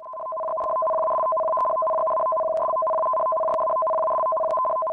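Tsunami warning alert tone: two steady pitches sounding together without a break, with a faint click about once a second.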